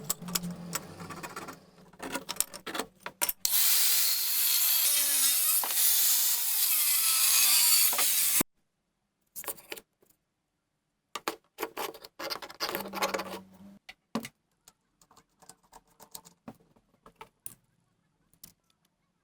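A handheld power tool runs loudly for about five seconds, its pitch dipping and recovering as it works, then cuts off suddenly. Light clicks, clinks and handling knocks of tools and metal parts come before and after it.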